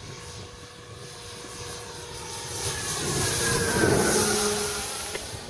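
Large-scale RC Taylorcraft's AXI electric motor and propeller whining through a low fly-by. The sound builds, is loudest about four seconds in as the plane passes closest, drops in pitch as it goes by, then fades.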